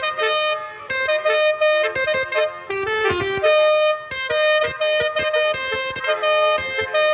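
Multi-tone 'telolet' bus horn of the basuri type playing a tune: short, loud horn notes that step up and down in pitch in quick succession, sometimes several sounding together.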